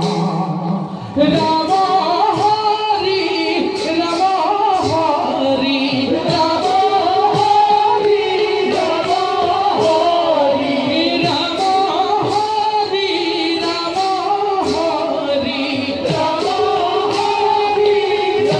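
Bhaona stage music: a singer's ornamented melody over regular percussion strikes, heard through the stage loudspeakers. A held note gives way to the song about a second in.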